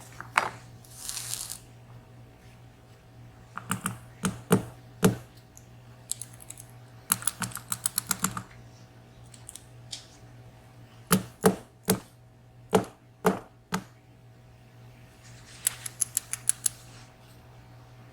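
Sharp clicks, taps and short rattles of small metal parts being handled as a 14-pin VSR dimple lock is taken apart and a pin stack is worked out of its chamber. The clicks come singly or in pairs, with rapid runs of ticks about seven seconds in and again near the end.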